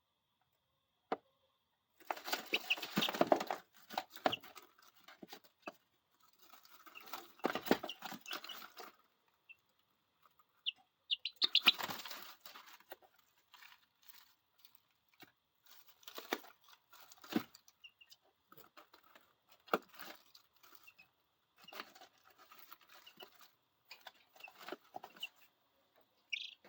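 Ten-day-old chicks moving about in brooder bedding: irregular bursts of scratching and scrambling, the biggest in the first half, with a few short peeps.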